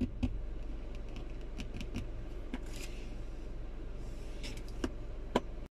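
Centre-console armrest lid of a 2010 Kia Forte SX being tapped and opened by hand: scattered small plastic clicks and taps, with a sharper click about five seconds in, over a steady low hum.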